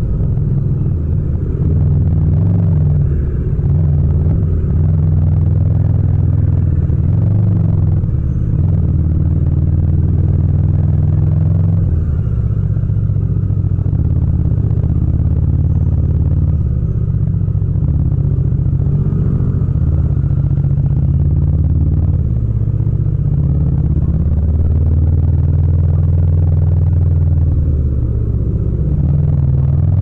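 Yamaha MT-07's parallel-twin engine running at low revs as the bike creeps through slow traffic, the engine note rising and falling a little with the throttle.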